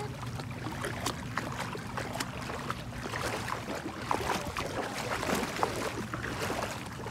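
Feet wading through shallow seawater on a flooded sandy trail, with irregular splashing and sloshing.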